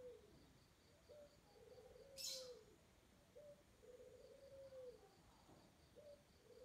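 Faint dove cooing: a short note, then a longer rolling coo that falls away at the end, repeated about every two and a half seconds. A brief sharp hiss comes about two seconds in.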